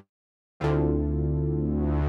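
Software synthesizer patch 'Polyphonic Minimoog', an Omnisphere emulation of a polyphonic Minimoog, holding one sustained chord with a deep bass. It comes in about half a second in after a short silence and stays steady.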